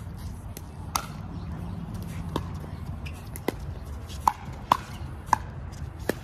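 Pickleball rally: paddles popping the hard plastic ball about seven times in a sharp, ringing series, the hits coming quicker from about four seconds in as the players volley at the net.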